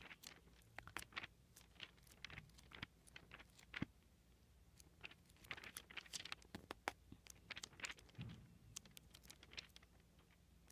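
Faint, irregular rustling and crinkling of thin Bible pages being leafed through to find a passage.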